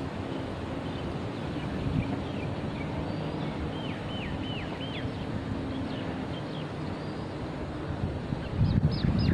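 Red-wattled lapwing calling: short, sharp calls that each drop in pitch, with a quick run of about four in the middle and more near the end. Under them is a steady low rumble that grows louder near the end.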